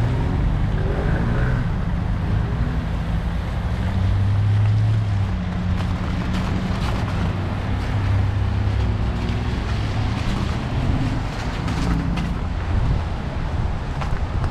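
Cars passing on a wet, slushy street, a steady low rumble of engines and tyres, with wind buffeting the microphone. In the second half, faint crunching footsteps on icy slush.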